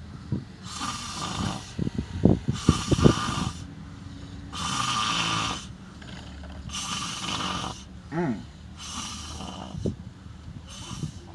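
A man snoring heavily: raspy breaths repeat every one to two seconds, with a burst of loud, rough, rattling snores about two to three seconds in.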